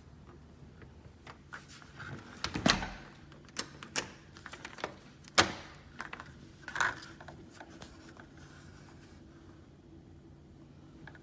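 A door being handled: its metal doorknob turning and its latch clicking, with a string of sharp clicks and knocks, the loudest about five seconds in.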